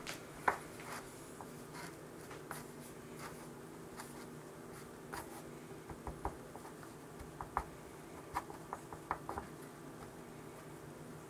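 Hand pressing and rubbing pheasant meat in a plastic tub of dry breading mix: soft rustling with scattered small taps and clicks, most of them in the second half, over a faint steady hum.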